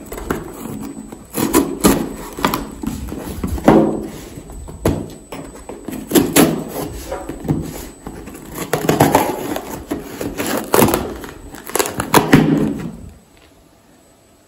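A knife blade slicing and scraping along packing tape on a cardboard box, with the tape and cardboard tearing in irregular strokes. It stops about a second before the end.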